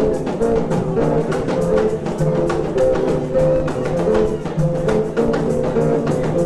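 Dance music with drums keeping a quick, steady beat under a repeating melody of held notes.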